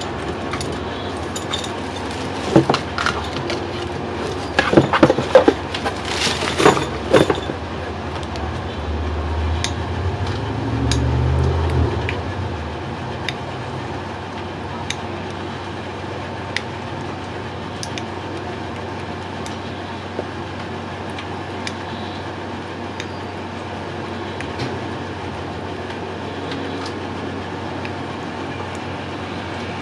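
Cardboard shipping box being worked open and its tissue-paper packing handled: a cluster of sharp crinkles, clicks and taps over the first several seconds, then only scattered light ticks. A low rumble swells and fades around the middle.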